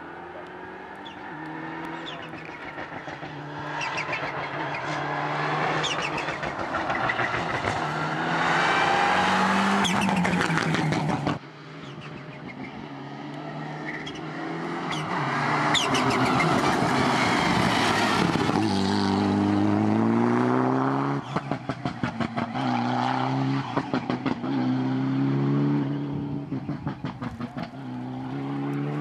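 Turbocharged Mitsubishi Lancer Evolution X rally car engines at full throttle, the note climbing in pitch as the cars accelerate, with an abrupt cut about 11 seconds in to another pass. Later the engine note turns choppy and stuttering, pulsing several times a second.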